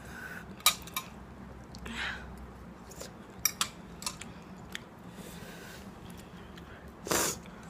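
Quiet mouth sounds from someone whose mouth is burning after extra-spicy instant noodles: scattered soft clicks and lip smacks, a short breath about two seconds in, and a louder sharp breath out near the end.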